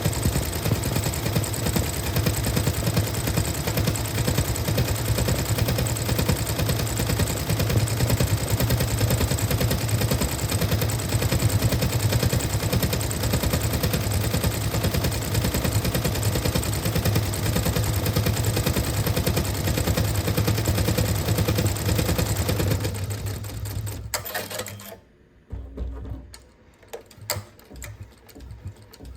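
Sewing machine stitching at a fast, steady pace with a dense run of needle strokes over its motor hum. Near the end it stops, leaving a few light clicks.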